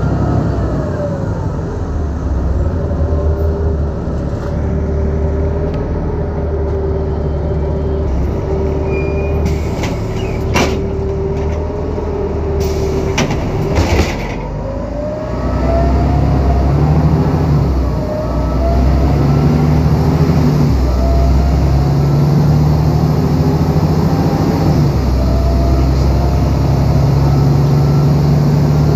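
Volvo B7LA articulated city bus's diesel engine running, its note holding steady and then shifting in pitch, with a few sharp clicks near the middle.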